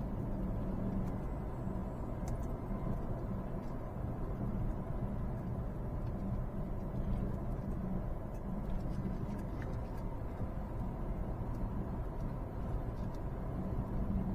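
Peugeot 308 driving, with steady engine and road noise and no suspension clunk. The clunk has gone now that the front stabilizer-bar end link is removed, marking that link as its cause.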